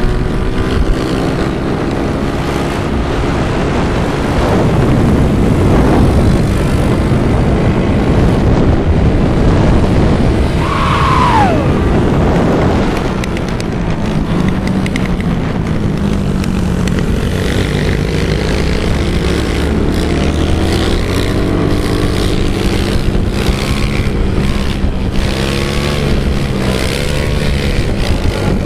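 Small dirt bike engines running and revving on the move, their pitch rising and falling with the throttle. One engine's pitch drops sharply about eleven seconds in.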